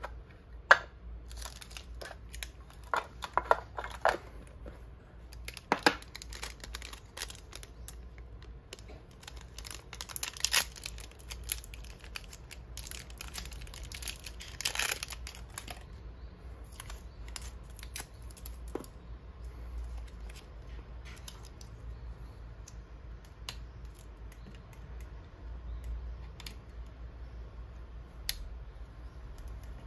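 Unwrapping a roll of 120 medium-format film: the packaging is opened and the foil wrapper is torn and crinkled off the roll, among scattered clicks and taps of handling. The crinkling is densest about a third of the way in and again around the middle.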